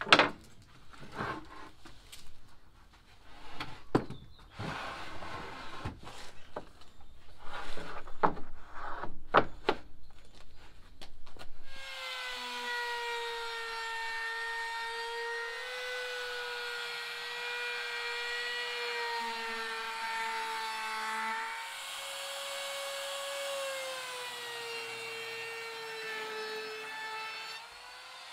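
Irregular wooden knocks and clatters as a batten and boards are set down on plywood. About twelve seconds in, a Bosch handheld router starts and runs with a steady high whine, cutting the edge of a plywood seat panel along a batten guide, its pitch wavering slightly under load.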